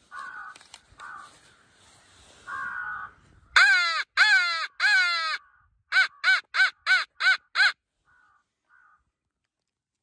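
Mouth-blown crow call worked close by: three loud, drawn-out caws, then a quick run of six short caws.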